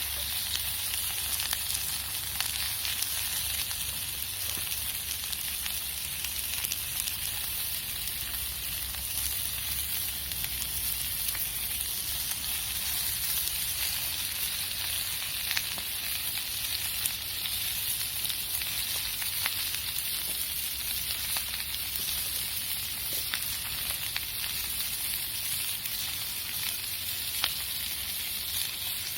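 Steady sizzling hiss of cooking over a campfire, broken by scattered sharp crackles and pops.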